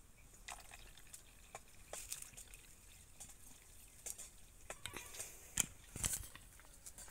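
Water trickling faintly from a plastic bottle into a plastic bowl of liquid, with scattered small splashes and clicks.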